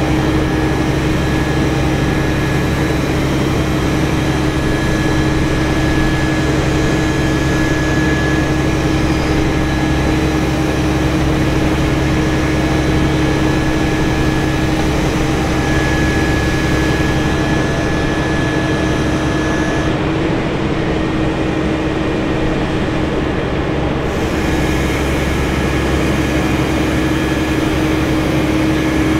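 A heavy engine running steadily at a constant speed, a loud unchanging drone with a few held humming tones.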